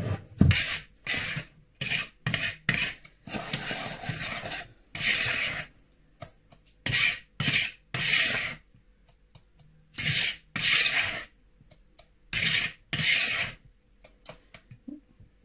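Wire balloon whisk scraping and swishing through thick brownie batter in a plastic mixing bowl, folding in the flour with a series of separate strokes and short pauses between them.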